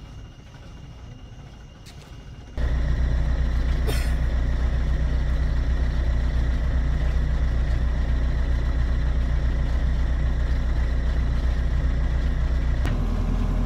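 Mini excavator's diesel engine running steadily at close range. It comes in suddenly about two and a half seconds in, and its note shifts slightly after a click shortly before the end.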